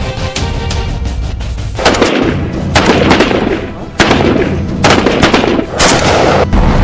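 Background music, then from about two seconds in a run of loud battle sound effects: gunshots and explosion blasts, about one a second, each trailing off.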